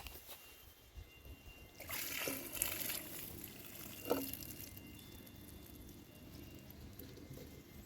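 Water pouring or trickling for about a second, a couple of seconds in, followed by a single sharp knock about four seconds in.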